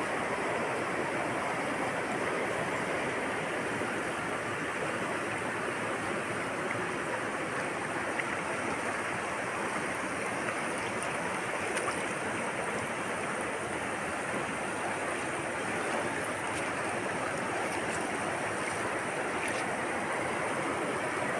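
Steady rushing of a wide, fast-flowing river, running evenly throughout.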